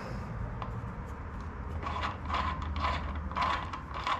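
Light metallic clicking and rattling as the jackshaft and its sprocket are turned and worked by hand in the torque converter backing plate. The clicks start about two seconds in and come roughly three a second.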